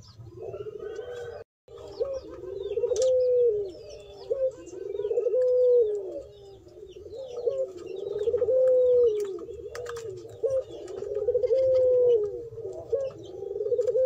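Puter pelung doves (a domestic ringneck dove breed) cooing over and over, each coo a long rolling call that rises, holds and falls, coming about every three seconds. Faint high chirps of small birds sound in the background.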